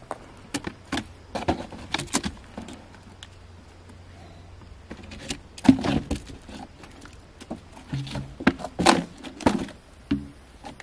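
A yearling Quarter Horse's hooves knocking and thudding on logs and dirt as it steps over a log pile, in irregular knocks, the loudest clusters about halfway through and near the end.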